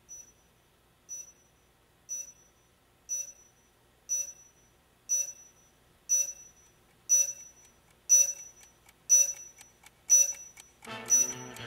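Electronic beeper sounding one short, high beep every second, each beep louder than the one before. Music swells in near the end.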